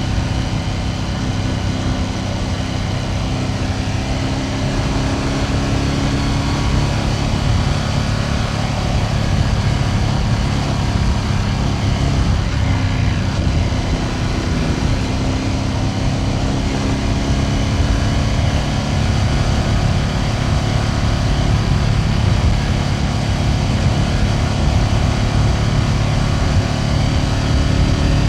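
Ducati Panigale V2S's 90-degree V-twin running under way at a fairly steady pace, its engine note rising and falling a little with the throttle, over road and wind rumble.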